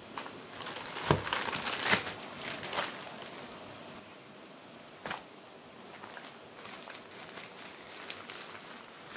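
Plastic and foil spare-parts packaging crinkling and rustling as it is handled. A sharp knock comes about a second in, the loudest sound here, with a burst of crinkling around it. A single click follows about five seconds in.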